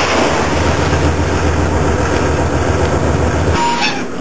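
A dive boat's engine running steadily under rushing wind and sea noise; it cuts off sharply about three and a half seconds in.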